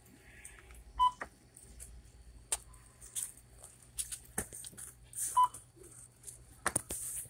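Two short electronic beeps of a checkout barcode scanner, about four seconds apart, among clicks and rustling of items being handled on the counter.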